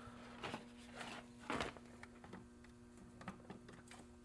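Faint clicks and light handling of a hot-staple plastic repair tool as a staple is seated in it, over a steady faint electrical hum.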